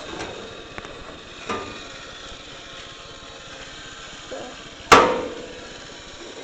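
A sharp clank about five seconds in that rings briefly, with a lighter knock about a second and a half in, over a steady background hiss.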